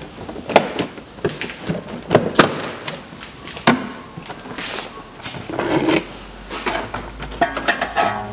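Plastic front wheel-arch liner of a Nissan Murano Z51 being bent and pulled aside by hand: irregular plastic knocks, clicks and scraping, with a short creak near the end.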